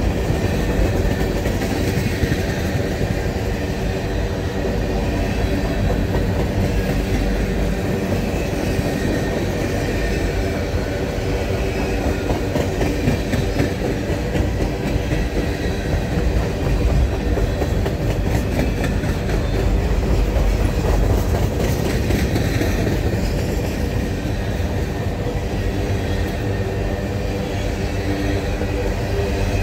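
Freight train cars, tank cars then boxcars, rolling past close by: a steady rumble of steel wheels on rail, with clicks as the wheels cross rail joints, thickest a little past halfway.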